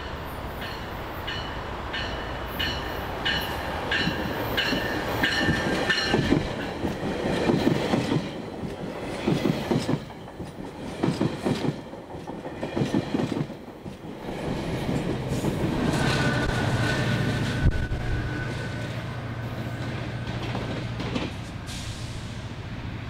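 GO Transit bilevel push-pull commuter train passing a platform at speed. A bell rings in regular strokes as the cab car comes in, then the wheels clickety-clack in quick surges as the double-deck coaches go by. After that comes a steady low drone as the diesel locomotive pushing at the rear passes, fading off near the end.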